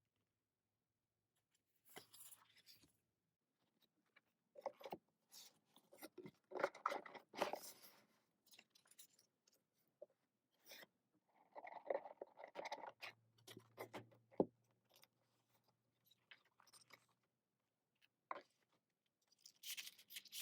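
K-pop album packaging, photo book and paper inserts being handled and unpacked by hand. The sound is quiet: scattered rustles and a few sharp clicks, with silent gaps between them.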